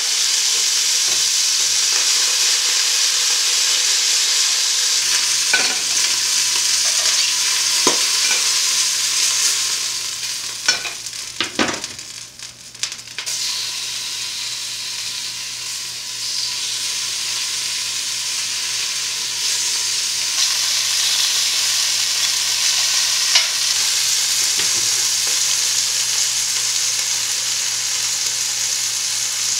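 Pieces of snowshoe hare sizzling as they brown in hot olive oil in an enameled cast-iron Dutch oven. The sizzle is a steady high hiss that dies down briefly about twelve seconds in, with a few short clicks and knocks around then.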